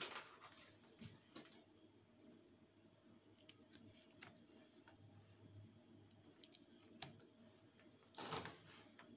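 Faint, scattered small clicks from hands handling wiring and crimped cable lugs, with a short rustle of clothing about eight seconds in.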